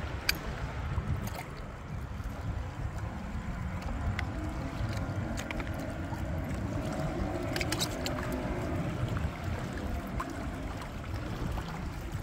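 Wind buffeting the microphone with water lapping and splashing against a moving kayak's hull, broken by a few light clicks, a small cluster of them about eight seconds in.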